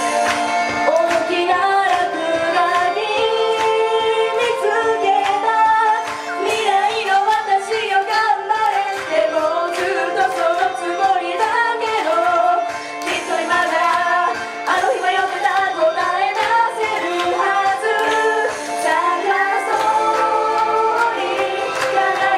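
Female voices singing an upbeat J-pop idol song into handheld microphones over backing music with a steady beat.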